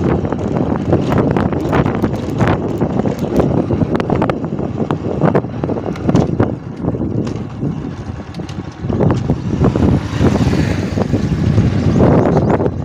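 Bajaj Platina motorcycle being ridden at low speed: wind buffeting the microphone in gusts over the single-cylinder engine running, with a brief dip in loudness about eight seconds in.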